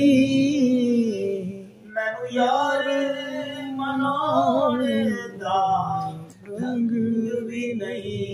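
A man singing a Punjabi devotional naat in long held, wavering notes with ornamented runs, pausing for breath about two seconds in and again about six seconds in.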